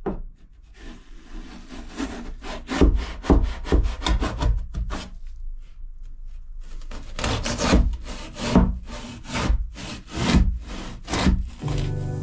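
A rusty hand saw sawing back and forth through waterlogged expanding foam in a boat's locker, about two strokes a second, with a short pause midway. Music comes in near the end.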